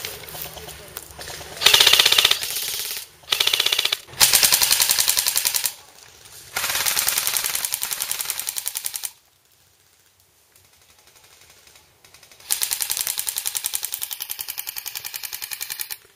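Airsoft electric gun firing full-auto in five rapid bursts, the longest about three and a half seconds, with a short lull in the middle.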